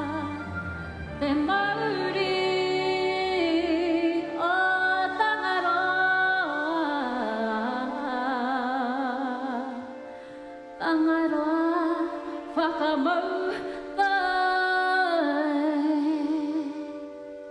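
Vocal music: several voices singing long held notes together with vibrato, in phrases that break off and start again.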